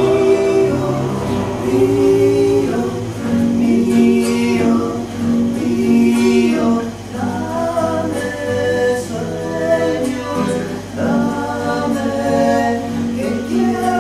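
A small group of voices, men and a woman, singing long held notes in harmony, a cappella.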